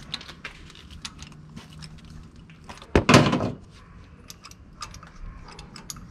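Spark plugs and hand tools being handled: light metallic clicks and clinks, with one louder clatter about three seconds in that lasts about half a second.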